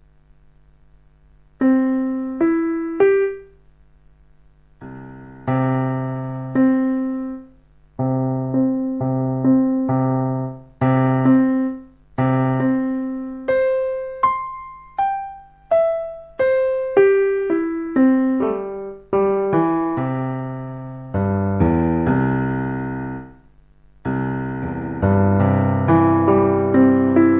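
Kurzweil KA90 digital piano playing: short phrases of single notes and simple intervals with pauses between, then fuller chords toward the end. A faint steady hum can be heard in the pauses.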